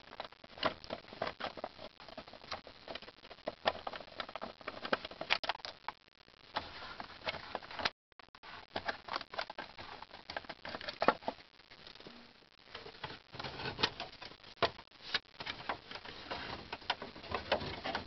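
Small ratchet and socket clicking as the small Torx-head bolt beside a Chevy Silverado's ignition lock cylinder is backed out, in quick irregular clicks. After a short break about halfway, more clicks and light rattles as the parts of the steering column are handled.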